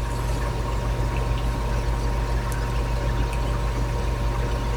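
A steady low mechanical hum or rumble, with a thin steady tone above it and a few faint small ticks.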